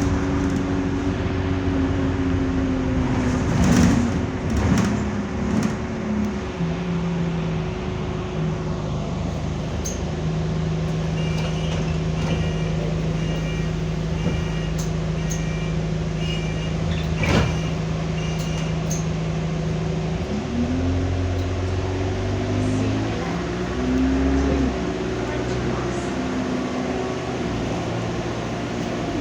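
Diesel single-deck bus engine and drivetrain heard from inside the cabin, holding a steady note through the middle and then shifting up and down in pitch in the last third as it pulls away and changes gear. A short run of evenly spaced electronic beeps sounds in the middle, with one sharp knock near it.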